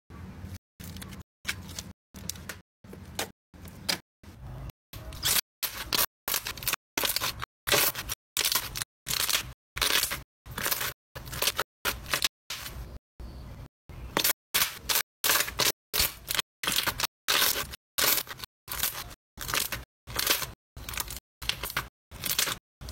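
Glossy slime being squished and kneaded by hand, giving wet crackling and squelching sounds that grow louder about five seconds in. The sound is chopped into short pieces by brief silences about twice a second.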